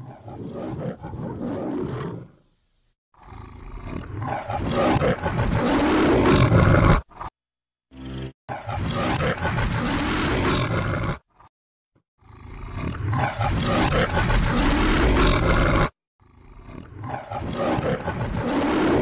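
The MGM lion's roar from the studio logo, played again and again: about five roars, each building up and then cutting off abruptly, with short silences between them.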